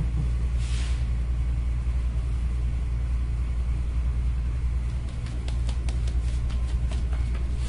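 A steady low rumble of room background noise, with a brief soft hiss about a second in and faint light taps near the end as powder puffs are patted onto the skin.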